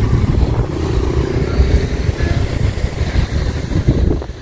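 Highway road traffic: vehicles and motorbikes going by in a dense, loud rumble that drops away near the end.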